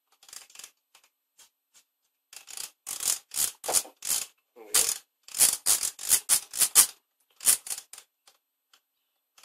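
Aerosol can of contact cleaner being shaken: a run of short, sharp rattling strokes, about three to four a second at their quickest, in clusters with short gaps.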